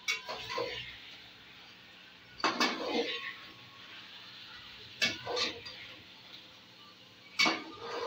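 Steel slotted spoon scraping and clinking against the side of an aluminium cooking pot while chicken pieces are stirred into a thick onion-tomato masala to fry them. The sound comes in four strokes, about two and a half seconds apart.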